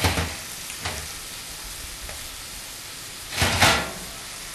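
Suckling pig roasting in an open oven, sizzling steadily, with a couple of short knocks near the start and a louder metal clatter about three and a half seconds in as the rack and tray are moved lower.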